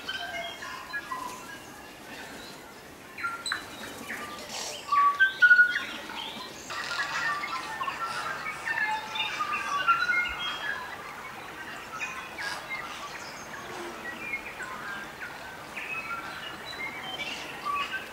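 A crowd of tūī singing and calling together: a dense, overlapping mix of short whistles, chirps and clicks, loudest about five seconds in.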